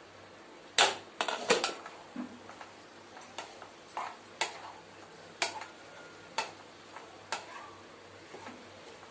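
A glass pan lid clatters as it is set down about a second in, followed by a wooden spatula stirring potato and Malabar spinach in a nonstick kadai, knocking and scraping against the pan about once a second.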